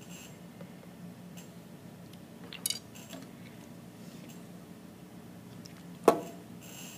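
Small plastic test vial and dropper bottle of a calcium test kit being handled during a drop-by-drop titration: a short clatter of light clicks about two and a half seconds in and one sharp tap about six seconds in.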